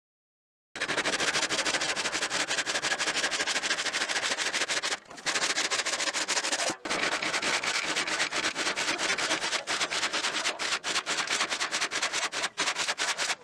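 Continuous rasping, rubbing scrape with a dense run of fine ticks, starting about a second in and breaking off briefly twice, about five and seven seconds in.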